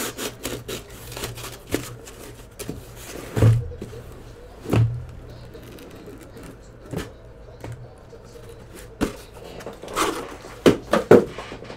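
Cardboard hobby box of trading cards being opened and its packaging handled: scattered clicks and taps, with two soft thumps a few seconds in and a quick run of clicks near the end.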